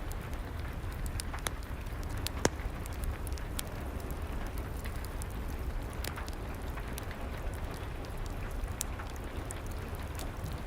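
Steady rain with a wood fire crackling in a fireplace: an even wash of noise with sharp pops scattered through it, the loudest about two and a half seconds in.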